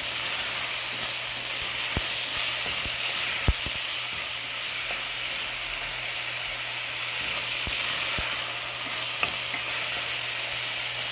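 Chopped onion and tomato sizzling steadily in oil in a pan while being stirred, with a few sharp knocks of the spoon against the pan.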